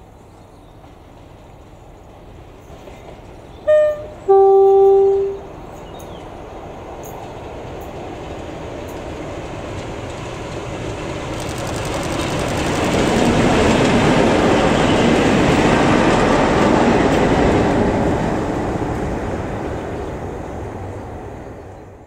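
Class 47 diesel locomotive sounding its two-tone horn about four seconds in, a short high note then a longer low one. It then runs through on its Sulzer twelve-cylinder engine, the noise building to loudest as it passes and dying away.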